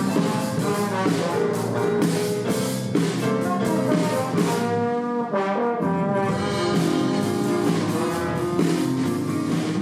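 Brass ensemble music: several brass instruments playing sustained notes over a steady beat.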